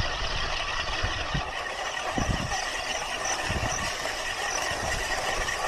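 Gravel bike rolling over a rough trail, its disc brake rotors rubbing against the brakes with a steady high whine, which the rider calls a very loud rotor noise. Scattered low thumps and rattles come from the bumps in the trail.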